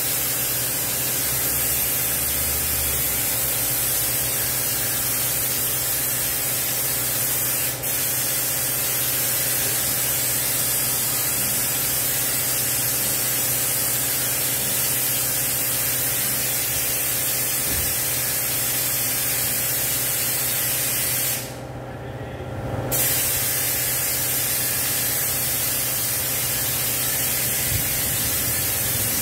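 High-pressure washer spraying water against the underside of a car on a lift: a loud, steady hiss over a steady low hum. About three-quarters of the way through, the spray stops for a second or so, then starts again.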